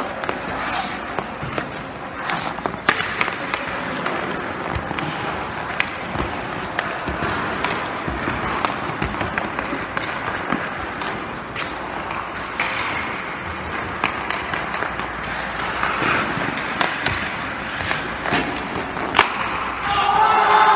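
Hockey skates scraping and carving on the ice, with frequent sharp clacks of a stick on a puck and of pucks striking, a few of them louder than the rest.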